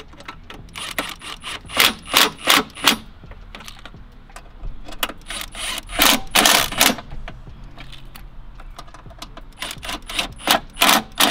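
Cordless power ratchet running in about four short bursts of rattling clicks, loosening small bolts on a car's battery tray.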